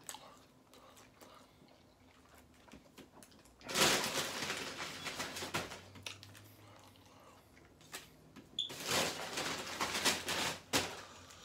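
Fast-food wrappers and sauce packets rustling and crinkling as they are handled, in two bursts of a couple of seconds each, about four and nine seconds in. Quieter chewing and small mouth clicks come between them.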